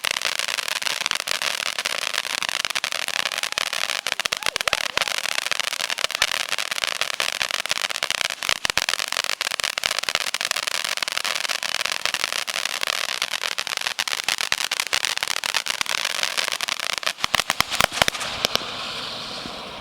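'Snow Cone' consumer fountain firework spraying sparks with a steady, dense crackling hiss. A flurry of louder crackles comes near the end, then it dies down.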